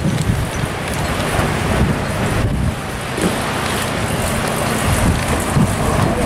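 Wind buffeting the microphone over a steady hiss of rain, with a miniature railway locomotive running past pulling its carriages.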